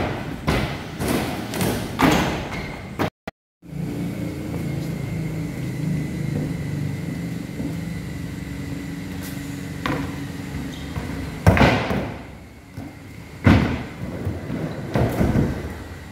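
Skateboards in use on the ramps: wheels rolling with a steady low rumble, broken by sharp thumps and clacks of boards landing and slapping down several times, the loudest near the end. The sound cuts out completely for a moment about three seconds in.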